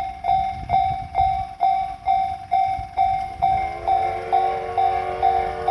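Japanese level-crossing warning bell ringing steadily at about two strokes a second. About three seconds in, the C11 325 steam locomotive's whistle joins it with one long chord that is still sounding at the end.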